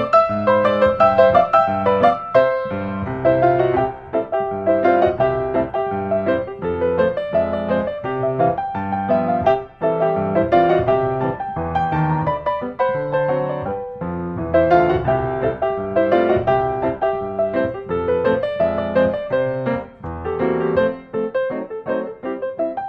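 Background piano music, a light melody over a flowing accompaniment.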